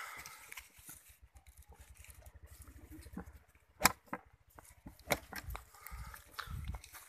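Rajanpuri cross goats tearing and chewing grass close to the microphone, with a few sharp clicks, the loudest about four seconds in.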